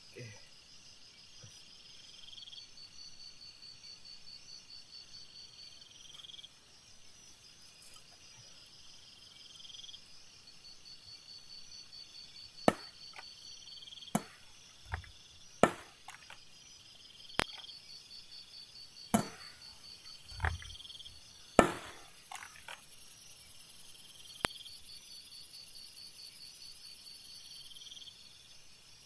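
Steady night-time chorus of calling insects, a high pulsing trill that comes and goes in stretches. From about halfway in, roughly nine sharp, separate knocks or clicks sound over a few seconds, the loudest near two-thirds of the way through.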